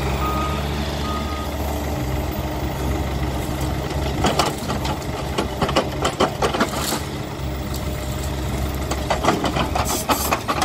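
Bobcat E85 compact excavator's diesel engine running steadily under hydraulic work. Two short electronic warning beeps sound about a second apart near the start. From about four seconds in, bursts of sharp knocks and clatter come as the grapple works among the wood.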